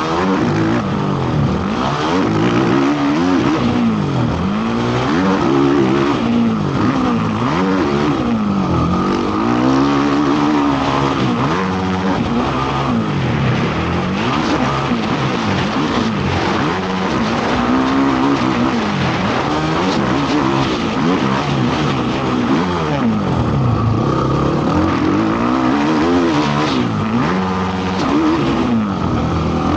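Motocross racing quad's engine revving up and down again and again as it is ridden hard. The throttle opens and closes, so the pitch climbs and drops every second or two.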